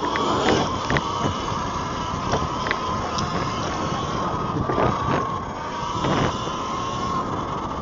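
E-Ride Pro SS 3.0 electric dirt bike riding: a steady motor whine over wind noise, broken by several sharp knocks and rattles, about half a second and a second in and again around five and six seconds in.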